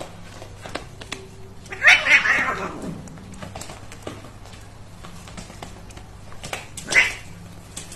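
A cat and a duck scuffling: one short, loud, hissy outburst about two seconds in and another about seven seconds in, with light taps and scrapes between.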